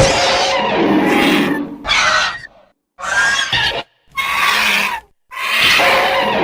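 Creature sound effects for a primitive crane: a run of about five rough animal calls, each under a second to about two seconds long, with brief silences between them.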